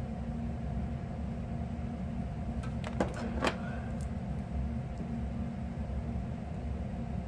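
Steady low hum with a few light clicks about three seconds in, the clicks from multimeter probe tips being moved and touched against the battery's BMS board.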